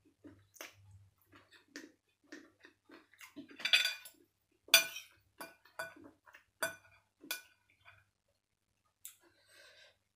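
Fork and spoon clinking and scraping against ceramic plates: a run of short, sharp clinks, the loudest about four and five seconds in, with quiet eating sounds between.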